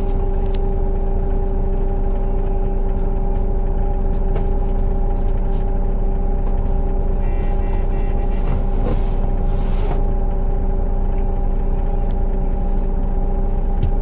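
Vehicle engine idling with a steady, even hum, heard from inside the stationary vehicle.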